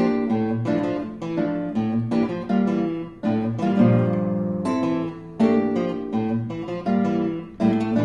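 Two classical guitars playing together: plucked notes and chords struck in quick succession, some left to ring longer.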